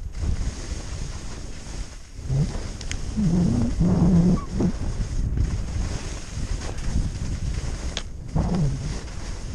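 Wind rushing over the microphone of a skier's action camera on a fast descent, with skis scraping and carving through crusty, chopped snow, surging loudest about three to four seconds in.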